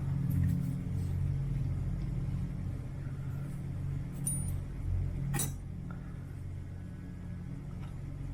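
A steady low hum with a few small clicks, the sharpest about five seconds in.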